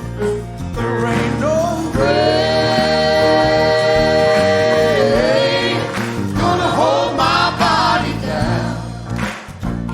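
Gospel song with band and singing: a voice holds one long note for about three seconds, dipping at its end, then sings wavering runs without clear words.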